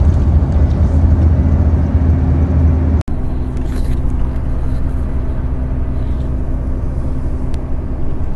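Steady engine hum and road rumble heard from inside a moving bus, with a momentary dropout about three seconds in, after which the same drone carries on a little quieter.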